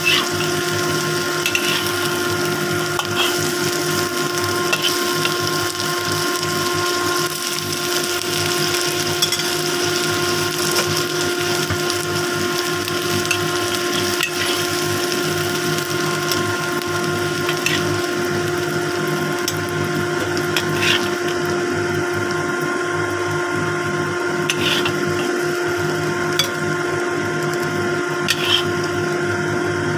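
Tanigue (Spanish mackerel) steaks and shallots frying in oil in a wok: a steady sizzle over a constant motor hum, with occasional short taps and scrapes of a metal spatula against the pan.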